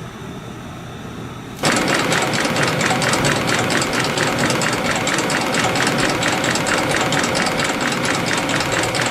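CNC spring coiling machine starting up about a second and a half in, then running with a rapid, even mechanical clatter as it coils fine-wire compression springs over a low machine hum.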